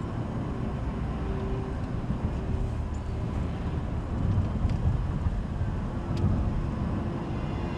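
Steady low rumble of a car on the move, heard from inside the cabin: engine and tyre noise from a 1.7 CDTI diesel, with a faint drone that comes and goes.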